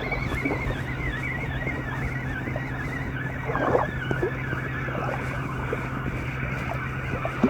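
Wind buffeting the microphone as a steady rumbling noise with a low hum underneath. A faint warbling high tone runs through the first half.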